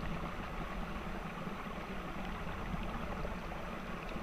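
Steady rush of running water from a small cascade falling into the pond, with a low rumble underneath.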